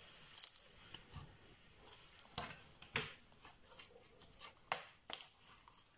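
Slime being stretched and squeezed by hand, with a few sharp, irregular wet clicks and pops.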